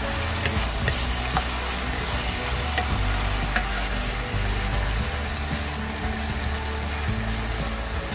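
Eggplant slices sizzling in a soy sauce and mirin glaze in a nonstick pan while a wooden spatula stirs them, with a few light clicks of the spatula against the pan in the first few seconds.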